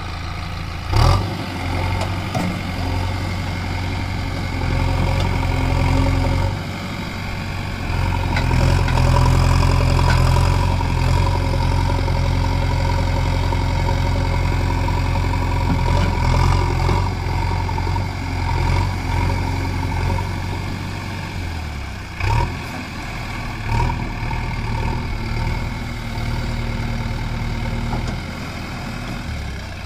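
JCB 3DX backhoe loader's diesel engine running, rising in revs for long stretches and settling back as the backhoe arm is worked. Two sharp knocks, about a second in and near two-thirds of the way through.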